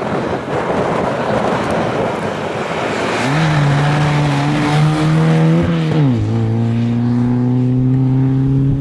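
Lada saloon rally car's four-cylinder engine at high revs as the car passes through a bend. At first it is mostly a rough roar. From about three seconds in it settles into a clear, steady engine note, which dips briefly about six seconds in and then slowly climbs again.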